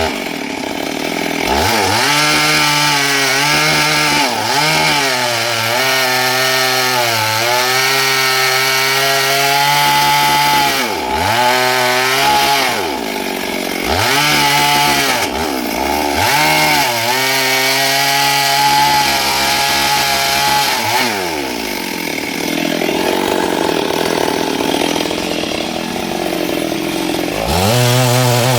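Stihl MS382 two-stroke chainsaw cutting wood at high revs, its engine pitch repeatedly sagging under load and climbing back. For several seconds near the end the engine note turns rougher and less clear before the saw comes back to full revs.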